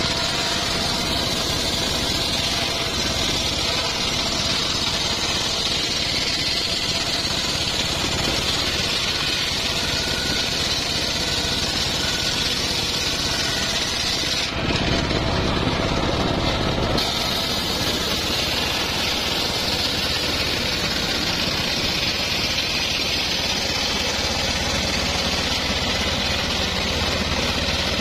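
Large circular saw blade on a homemade sawmill ripping a teak plank lengthwise: a steady high hiss of cutting over the drone of the machine's drive motor. The cutting hiss drops out for a couple of seconds about halfway through, leaving only the running motor and blade, then resumes.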